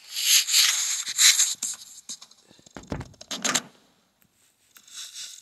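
Scraping, rustling noise for about two seconds, then a few low thumps about three seconds in and a fainter rustle near the end.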